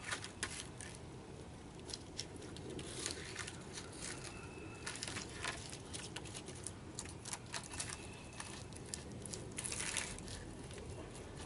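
Scattered crackles and light wooden knocks as a long stripped pole is carried over dry, twig-strewn ground and laid onto a log wall, with footsteps crunching on the debris. The busiest burst comes near the end as the pole is set down.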